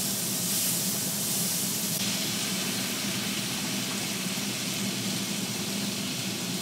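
Steak sizzling on the domed grill plate of an electric hot pot and grill combo, with the broth boiling in the pot around it: a steady hiss.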